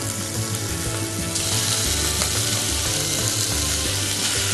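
Raw minced meat sizzling as it is spooned into a hot pot of frying onions and tomato paste. The sizzle gets louder about a second and a half in.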